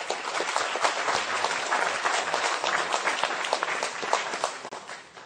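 Crowd applauding: many hands clapping at once, dying away near the end.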